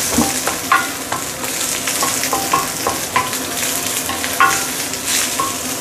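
Prawn heads and shells sizzling on high heat in a stainless steel wok, stirred and scraped with a wooden spatula. The steady sizzle carries many short knocks of the spatula against the wok, each ringing briefly, a few a second.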